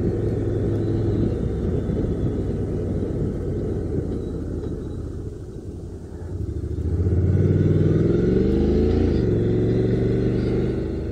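Honda NC750X parallel-twin motorcycle engine under way with wind rush. It eases off about halfway through, then pulls up through the revs, rising in pitch, and drops sharply with an upshift before settling into a steady cruise.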